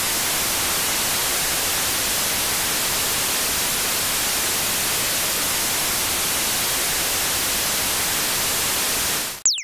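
Television static: a loud, steady white-noise hiss. Near the end it cuts out, with a brief quick falling whistle.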